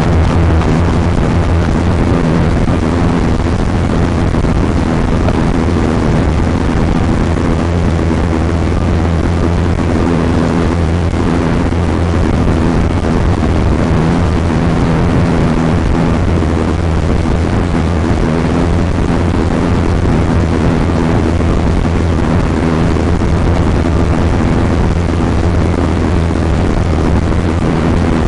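A vehicle engine droning steadily with a strong low hum under a wash of noise.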